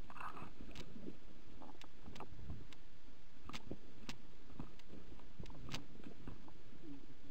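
Footsteps and rustling as someone pushes through ferns and bramble undergrowth, with scattered sharp clicks and snaps.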